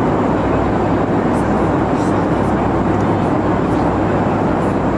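Steady cabin noise of a Boeing 737-500: an even rush of air and engine hum heard from a passenger seat, with a few faint light ticks now and then.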